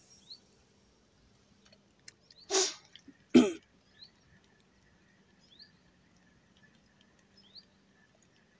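A man coughs twice close to the microphone, a little over two seconds in and again about a second later, the second cough louder and throatier. Faint short bird chirps come now and then afterwards.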